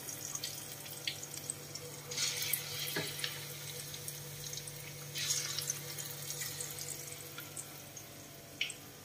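Besan bhajis deep-frying in hot oil in a kadai: a steady sizzle with scattered crackles and pops, swelling louder about two seconds in and again about five seconds in, over a steady low hum.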